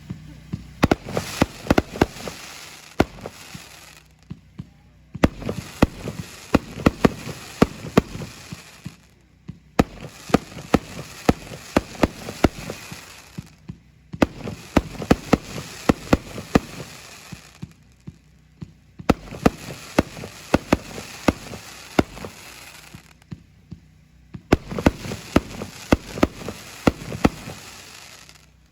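A 49-shot consumer firework cake (Miami Vice) firing in volleys: quick runs of sharp shots and bursts over a dense hiss. About six volleys, each some four to five seconds long, come with brief pauses between them.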